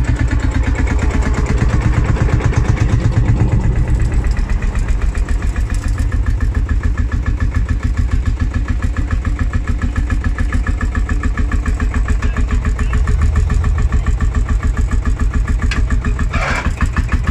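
Vintage tractor engine running close by with a steady, even chugging beat as the tractor drives slowly in and past.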